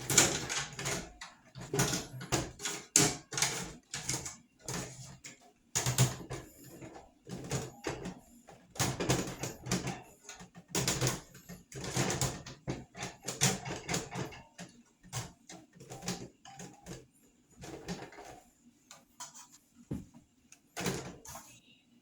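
Irregular clattering, rubbing and scrubbing noises as table-fan parts are handled and cleaned, in short bursts with brief pauses between them.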